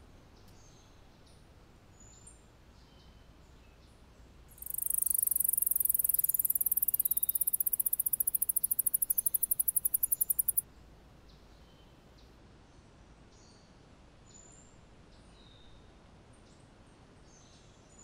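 Alston's singing mouse (Scotinomys teguina) singing a very high-pitched trill of rapidly repeated notes, starting about four and a half seconds in and lasting about six seconds. The notes grow more spaced toward the end before the song stops abruptly.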